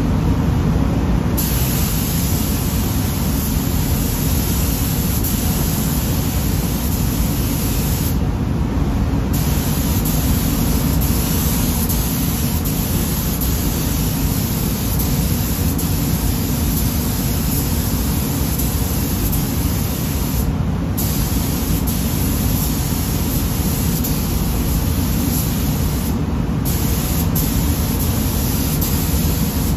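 Compressed-air paint spray gun hissing as pearl white paint is sprayed onto a bumper cover. The hiss starts a second or so in and cuts out briefly three times as the trigger is let off, about eight seconds in, around twenty seconds and near the end, over a steady low rumble.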